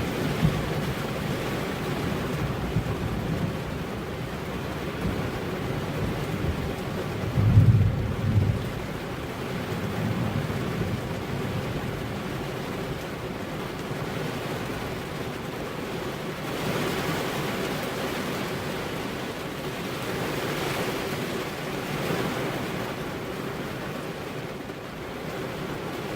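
Rain pattering steadily on a car's windows, with a low roll of thunder rumbling about seven to nine seconds in.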